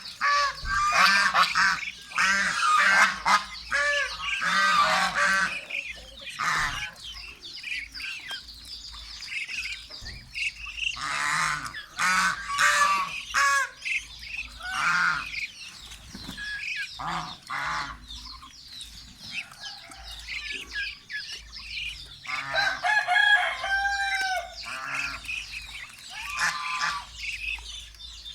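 Domestic geese honking in repeated bursts, with ducks and chickens calling among them. The honking is thickest in the first few seconds and flares up again about halfway through and near the end.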